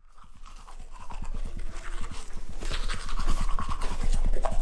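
Toothbrush scrubbing back and forth on teeth close to the microphone: rapid, even strokes, several a second, growing louder over the first second or so.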